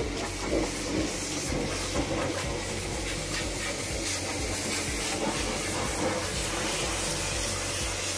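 Wind blowing across the microphone: a steady rushing hiss with a low rumble underneath.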